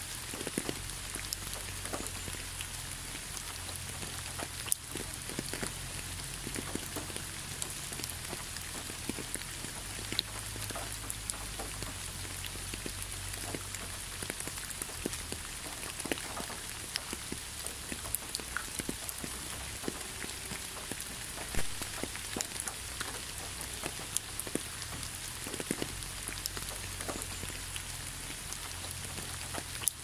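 Steady rain falling: a constant hiss with many separate drops ticking, over a low rumble underneath.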